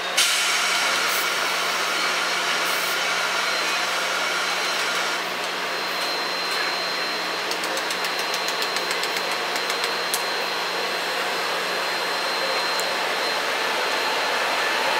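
A Taiwan Railways train running, a steady rushing mechanical noise sped up by double-speed playback. About halfway in there is a quick run of evenly spaced clicks, and a thin high whine carries through the second half.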